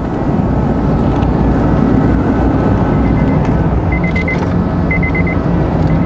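A 2003 Honda Accord's 2.4-litre four-cylinder engine idles steadily with a failing, overheating alternator that is not charging properly; the alternator is the suspected source of the humming whine. Three short runs of rapid beeping come in from about halfway.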